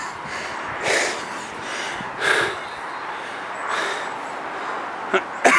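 Heavy breathing close to the microphone, a breath about every second and a half, from someone out of breath from the climb.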